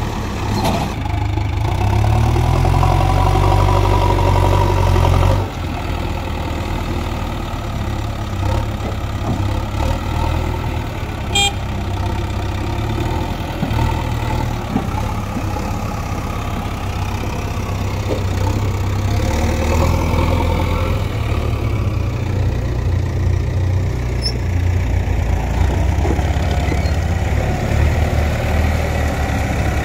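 Diesel engines of a JCB backhoe loader and a farm tractor running. The loader's engine revs up with a rising pitch over the first few seconds, and the sound breaks off abruptly about five seconds in. After that the engines run unevenly at lower revs.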